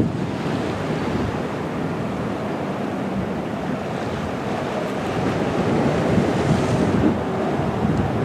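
Wind buffeting the microphone over a steady wash of sea waves.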